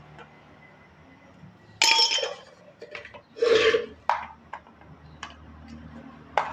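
Several sharp metallic clinks and clattering knocks, with a brief scrape, from metal parts or tools being handled during a water pump repair. The loudest clatter is about two seconds in, more knocks follow around three and a half seconds, and a few lighter clicks come after, over a faint low hum.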